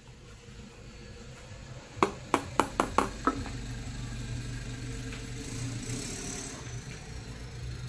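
Six sharp taps in quick succession, about two seconds in. They are followed by a steady low engine hum.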